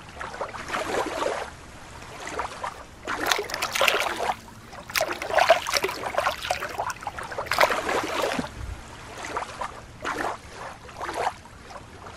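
Shallow lake water splashing and sloshing in irregular bursts as a hand swishes a small plastic toy dolphin through it.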